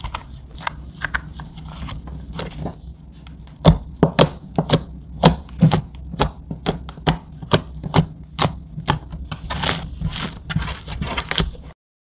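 Hands kneading and folding thick slime with soft crackling squishes, then a run of sharp clicking pops, about two a second, as fingertips poke into it. The clicks grow denser near the end and cut off suddenly.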